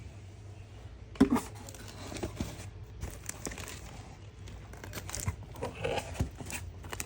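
Paper and cardboard shipping packaging being handled and opened: irregular crinkling, rustling and tearing, with one sharp knock a little over a second in.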